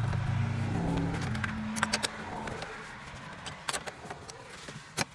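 Small metal clicks and clinks of a hand tool working the negative terminal clamp on a car battery. There are a few sharp clicks about two seconds in, a pair later on, and another near the end. A low hum fades out over the first couple of seconds.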